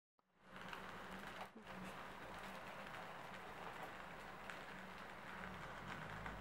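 Crisp layered pan-fried flatbread being torn apart by hand: faint, steady crackling of the flaky crust as its layers separate.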